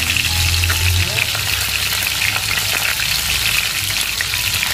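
Whole climbing perch deep-frying in hot oil in a pan, a dense, steady crackle and sizzle of popping oil. The fish are already crisp and close to done.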